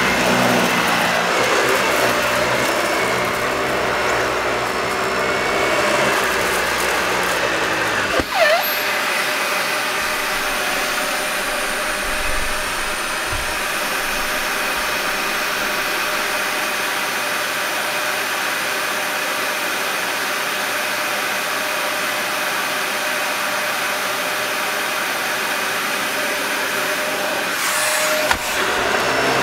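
Dyson Ball Animal upright vacuum cleaner running over carpet: a steady motor whine with rushing suction. About 8 seconds in there is a knock, and after it the deep rumble drops away while the whine carries on. Another small knock comes near the end.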